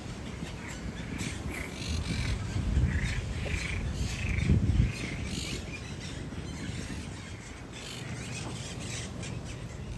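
Birds calling: a run of short, harsh calls about one and a half to five seconds in, over a low rumble that is loudest about four and a half seconds in.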